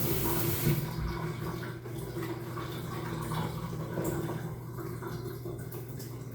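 Water spraying from a newly fitted shower head, a steady hiss that drops away about a second in, leaving a low steady hum.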